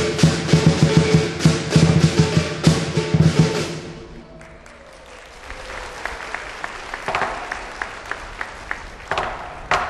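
Loud drumming and percussion with music, rapid strikes over a steady tone, that fades out about four seconds in. It gives way to quieter street noise with scattered light taps before the loud drumming comes back at the very end.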